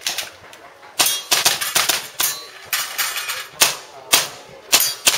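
Gas airsoft pistol firing a rapid, uneven string of shots at the targets, with the BBs ringing as they hit steel plates.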